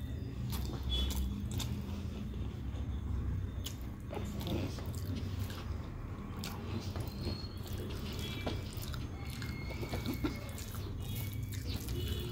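Close-up chewing and mouth sounds of a person eating rice by hand, with small clicks of fingers mixing food on a steel plate.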